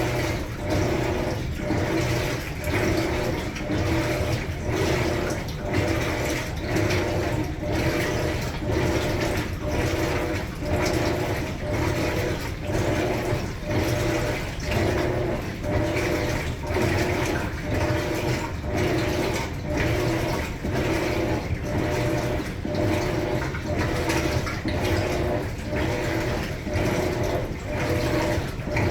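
Maytag Bravos MCT top-load washer agitating during the rinse: the motor turns the wash plate back and forth about once a second, churning and sloshing the water and clothes with a steady whir underneath.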